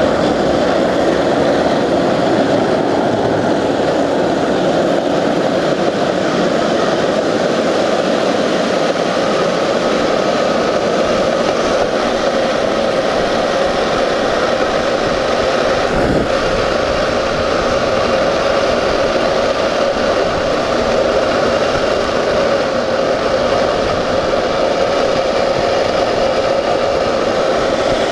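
Steel ball-bearing wheels of a rolimã cart rolling fast down asphalt: a loud, steady drone, with one brief knock about halfway through.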